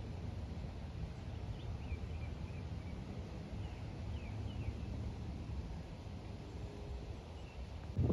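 Steady low rumble, with small birds chirping briefly several times between about one and five seconds in.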